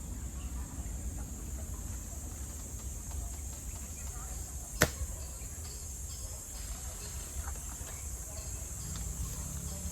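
Steady high-pitched insect chirring, like crickets, over a low rumble of wind on the microphone. A single sharp click comes about five seconds in.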